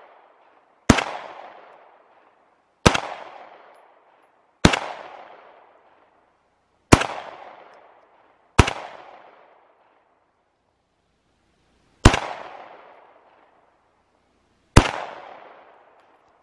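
Seven single shots from a 9mm Glock pistol, fired at uneven intervals of about two to three seconds. Each sharp crack is followed by an echo that dies away over about a second.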